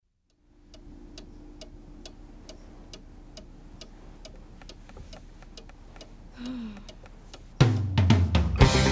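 Clock ticking steadily, about two ticks a second, over a faint low hum, with a brief gliding voice-like sound about six and a half seconds in. Loud guitar rock music cuts in abruptly near the end.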